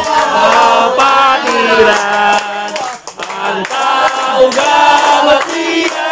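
A group of men singing a chant together in Tagalog, with hands clapping along.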